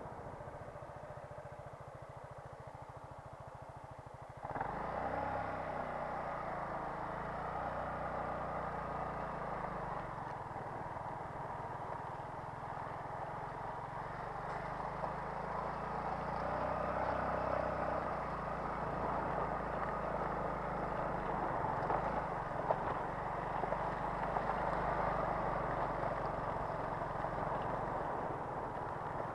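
Motorcycle engine running quietly at low revs. About four and a half seconds in it gets suddenly louder as the bike pulls away, and it keeps running at low, varying speed as the bike rides slowly.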